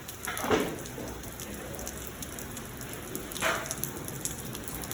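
Heavy rain falling steadily, as an even hiss, with two brief louder noises about half a second and three and a half seconds in.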